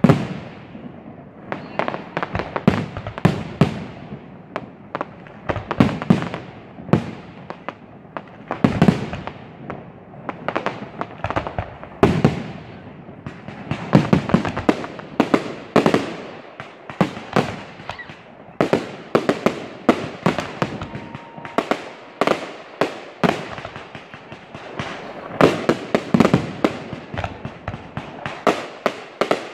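Aerial firework shells bursting in quick, irregular succession, sharp bangs several a second at the busiest, each trailing off.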